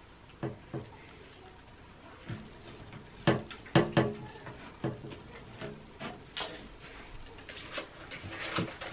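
Irregular knocks and clatter of terrarium furnishings being handled and set down inside a glass tank, the loudest bunch of knocks a little over three seconds in.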